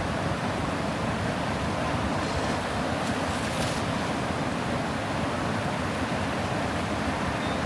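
Steady rush of floodwater flowing through a sluice gate, an even noise with no breaks.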